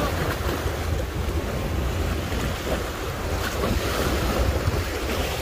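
Small sea waves breaking and washing over shoreline rocks, a steady surf noise, with wind buffeting the microphone as a low rumble.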